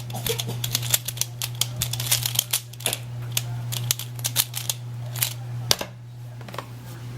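YKL Pyraminx speed puzzle being turned quickly by hand, giving a fast, irregular run of sharp plastic clicks as its magnets lock each turn in place. A steady low hum runs underneath.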